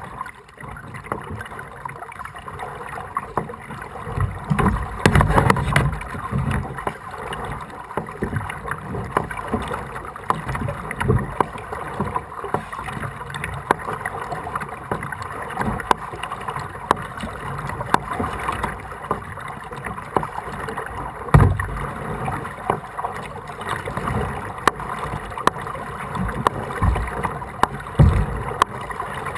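Kayak paddling through floodwater: the paddle dips and splashes and water sloshes against the hull in an uneven rhythm. There are a few dull thumps, the strongest about five seconds in, again about two-thirds of the way through, and once near the end.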